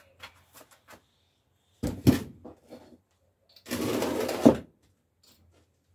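Objects being handled: a loud knock about two seconds in, then something scraped or slid for under a second that ends in a sharp knock as it is set down.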